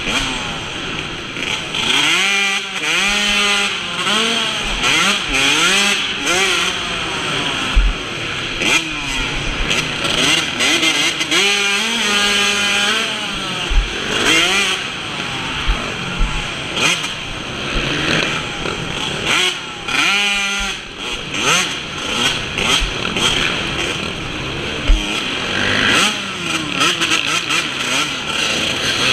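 Yamaha YZ125 two-stroke single-cylinder engine being ridden hard, revving up and easing off again and again, its pitch climbing through the gears and dropping back every second or two.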